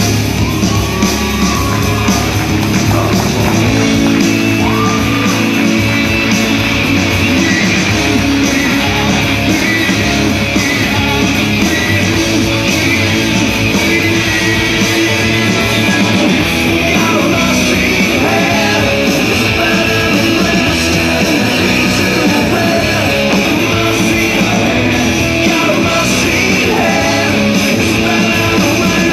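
Loud rock music with guitar and a singing voice, played back in a large hall as a performance soundtrack.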